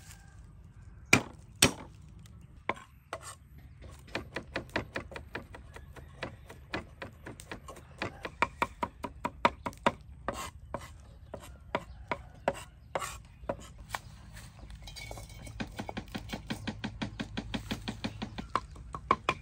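Meat cleaver chopping garlic on a wooden chopping block: two heavy chops a little over a second in, then quick steady chopping, about four strokes a second.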